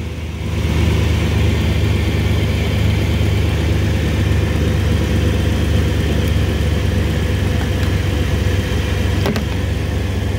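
Jeep Wrangler's 4.0-litre straight-six engine idling steadily, just jump-started from a dead battery. A single sharp click near the end.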